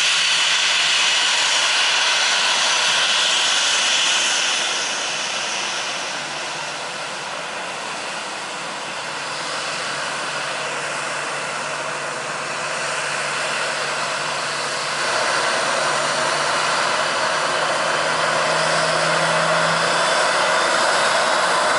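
Jet aircraft engines running, a loud steady rush with a low hum underneath. The level dips for several seconds midway and comes back, and a thin high whine rises in pitch near the end.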